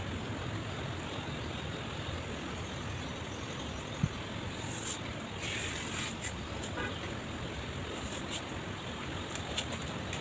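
Steady rushing background noise, with one sharp click about four seconds in and a few faint ticks near the end.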